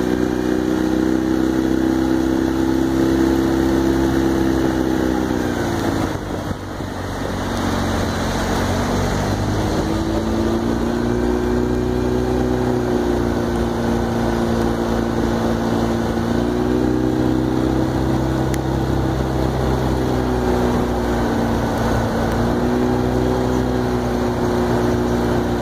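Outboard motor of an aluminium launch boat running under way. Its pitch falls as the throttle eases about six seconds in, climbs back up a few seconds later, then shifts speed slightly a couple more times.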